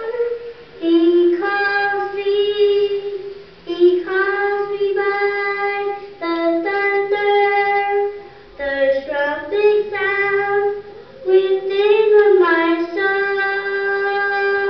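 A young girl singing solo into a microphone, holding long notes in phrases of a few seconds each with short breaks between them.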